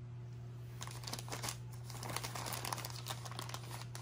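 White plastic poly mailer crinkling as hands pull it open, starting about a second in, over a steady low hum.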